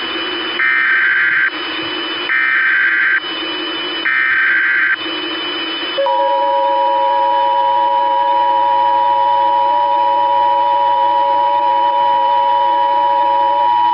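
Emergency Alert System header: three short bursts of screechy SAME data tones, each under a second, then the two-tone EAS attention signal starting about six seconds in and held steady. This marks the start of an emergency alert broadcast. Radio static hiss runs underneath.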